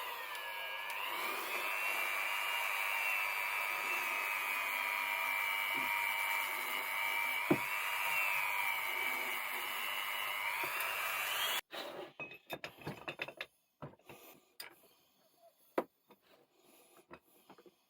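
Small power tool motor running steadily with a high whine, its pitch dipping and recovering as it is loaded, then cutting off abruptly about two-thirds of the way through. Scattered light clicks and knocks follow.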